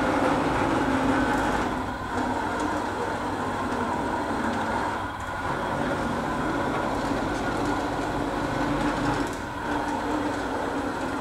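PlasmaCam CNC plasma table running a zigzag path, its gantry and torch carriage drive motors moving with a steady mechanical whir and a pitched whine that comes and goes.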